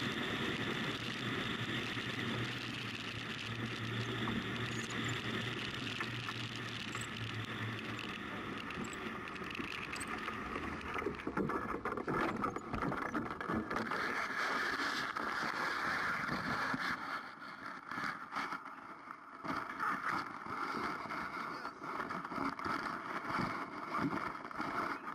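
Wind rushing over a helmet-mounted camera as a paraglider glides in low to land, with a faint steady low hum for the first several seconds. About two-thirds of the way through the wind dies away and uneven rustling and handling noises of the lines and harness follow on the ground.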